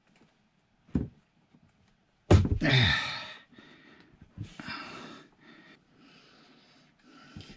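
Hand-tightening a plastic bidet supply-hose fitting at a toilet's water valve, gripped through a cloth. A knock about a second in, then a few short rustling, breathy noises from the cloth and hand working the fitting.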